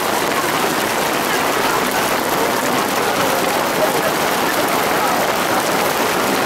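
Hail and rain pelting down on open ground, a dense, steady pattering of many small hits with no let-up.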